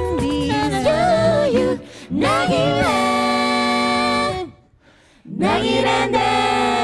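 A six-voice a cappella group sings in close harmony over a sung bass line. The phrases move and then settle into a held chord. The voices break off for under a second about four and a half seconds in, then come back with another sustained chord.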